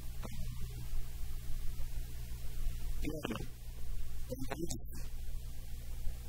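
Steady low electrical hum, with a man's two brief murmurs about three and four and a half seconds in.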